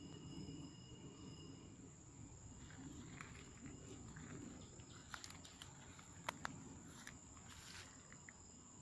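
Faint, steady high-pitched insect drone, with a few sharp clicks and rustles about five to six and a half seconds in.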